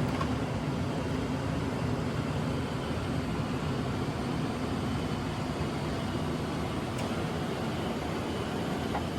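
Steady rushing cabin noise on the flight deck of a Boeing 787-9 in its climb after takeoff: airflow and air-conditioning noise with the low drone of the aircraft, even throughout, with a faint tick or two.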